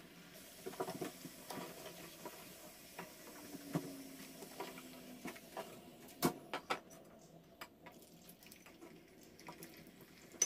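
French fries deep-frying in a small pot of oil, a faint crackling sizzle, with scattered light clicks of a plastic slotted turner against the pot as the fries are stirred and lifted out, the clearest a couple of clicks a little past the middle.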